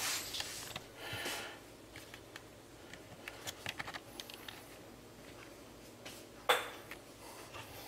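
Quiet kitchen room tone with scattered faint clicks and light handling rustles, and one brief, sharper sound about six and a half seconds in.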